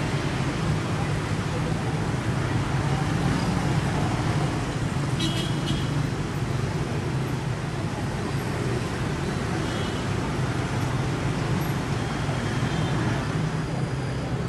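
Steady noise of road traffic, with a brief sharp high sound about five seconds in.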